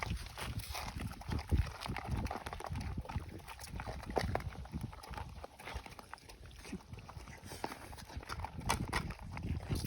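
Stray dogs eating, with irregular short smacking and clicking sounds of chewing.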